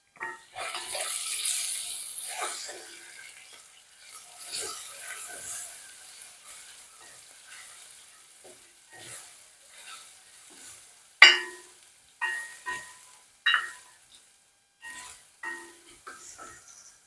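Crushed garlic sizzling as it goes into hot oil with browned onions in a granite-coated pot, the sizzle fading as it is stirred. In the second half a slotted spoon knocks sharply against the metal pot several times, each knock ringing briefly.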